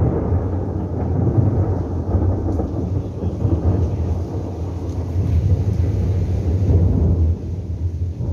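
Thunderstorm: thunder rumbling low and continuously over rain, loudest right at the start and easing slightly near the end.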